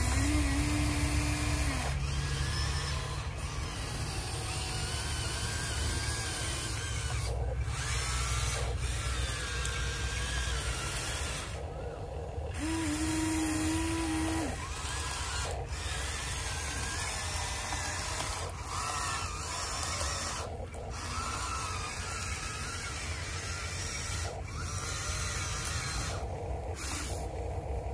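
Electric motors of a Huina 1593 RC excavator whining as it moves its boom and bucket. The pitch wavers as the motors start and stop, with short breaks throughout.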